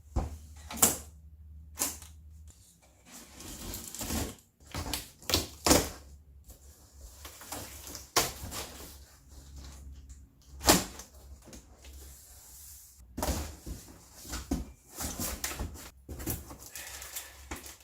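Packing and parts being handled as a box is unpacked: scattered knocks and clunks with stretches of rustling, over a low steady hum.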